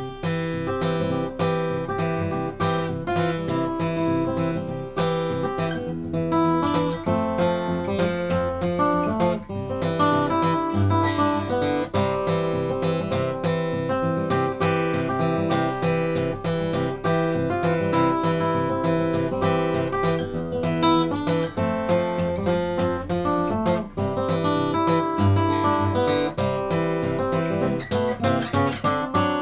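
Bedell Earthsong Orchestra acoustic guitar being played solo in a continuous stream of plucked notes and strummed chords.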